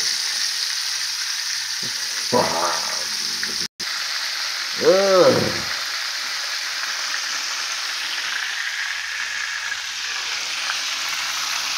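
Flour-coated chicken drumsticks frying in a pan of hot oil, a steady sizzling hiss. A couple of brief vocal sounds come over it at about two and a half and five seconds in.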